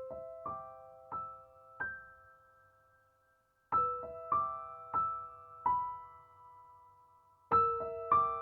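Background music: soft piano notes played in slow, gently ringing phrases, one phrase of four notes, a short lull, then a second phrase of five notes, and a third phrase starting near the end.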